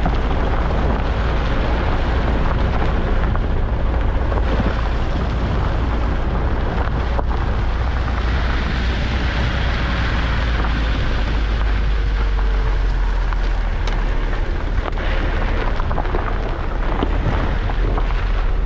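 An SUV driving along a gravel track, heard as a loud, steady rumble of wind and road noise on a camera mounted outside the car, with tyres on gravel. A few sharp clicks stand out about a third of the way in and again after the middle.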